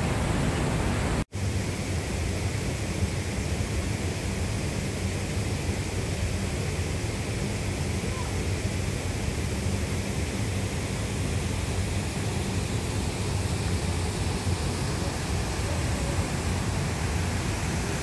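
Steady rushing of water from a waterfall spilling over a stone weir, an even dense noise. It drops out for an instant about a second in.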